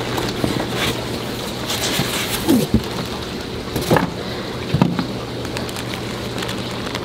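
A cardboard fish-shipping box and its styrofoam liner being handled and opened, with scrapes, rustles and a few short squeaks of styrofoam and bag plastic. Under this runs a steady hiss like running water, with a low hum.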